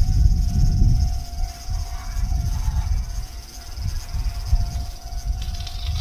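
Insects shrilling in one steady, high continuous drone, under uneven gusts of wind rumbling on the microphone.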